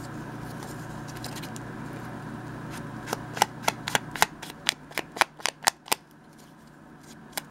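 Small ink pad dabbed against the edges of a paper scrap to distress them: a run of sharp, light taps, about three or four a second, in the second half, with paper rustling.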